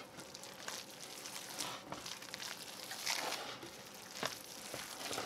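Hands squishing and kneading raw ground beef and sausage into a wet breadcrumb-and-vegetable meatloaf mixture in a ceramic bowl: faint, irregular squelches.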